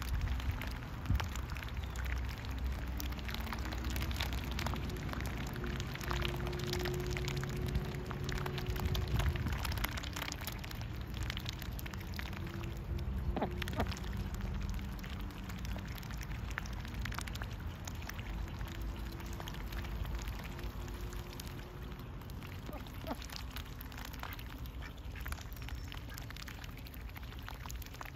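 Pekin and Khaki Campbell ducks dabbling their bills in a shallow mud puddle: a fast, continuous wet clicking and slurping as the bills sift through water and mud.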